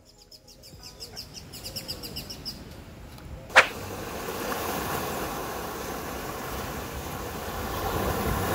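A bird chirps in a quick repeated series. Then, after a sharp click about three and a half seconds in, sea waves wash steadily over a rocky shore.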